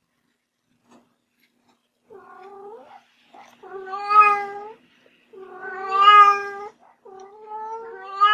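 Cat meowing: a run of long, drawn-out meows that starts about two seconds in, with the middle calls the loudest.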